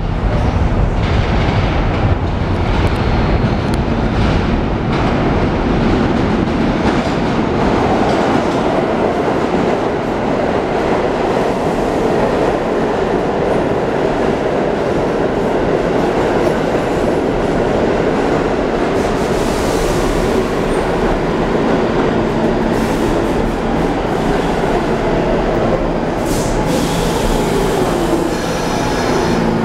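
R46 New York City subway train coming out of the tunnel and pulling into an underground station, running loudly on the rails with a heavy rumble and some clatter from the wheels. In the last few seconds, as it slows, steady tones and a falling tone rise over the rumble.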